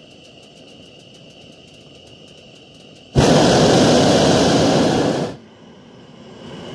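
Hot air balloon's propane burner firing once, overhead: a loud, even rushing blast that starts suddenly about three seconds in, holds for about two seconds and cuts off.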